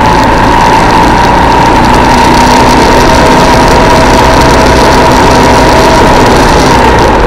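Armstrong MT500 military motorcycle's single-cylinder four-stroke engine running steadily and loudly at road speed.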